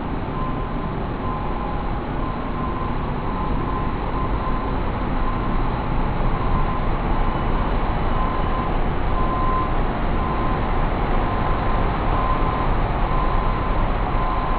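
Steady low rumble of idling city buses, with a thin tone that comes and goes.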